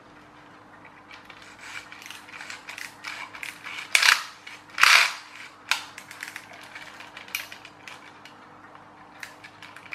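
Plastic gearbox of a clockwork toy tractor being handled and worked apart: small plastic clicks and rattles of its gears and parts, with two louder scraping rattles about four and five seconds in.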